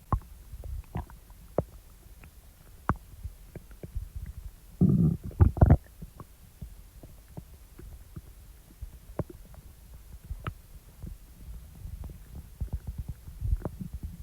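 Stomach growling and gurgling after eating: scattered small pops and clicks over a low rumble, with a louder gurgling growl about five seconds in.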